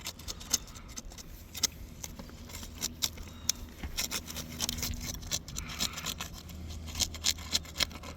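Irregular scraping and clicking of a tool being worked under an asphalt roof shingle to break its seal and lift it, over a steady low hum.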